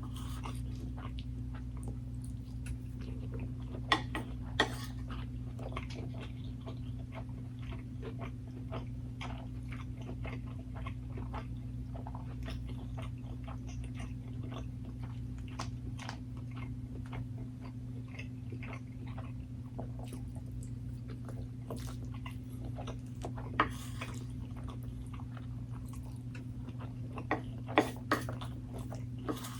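Close-miked eating sounds: chewing and biting of food, a run of small wet clicks, with a few louder sharp clicks about four seconds in and again near the end, over a steady low hum.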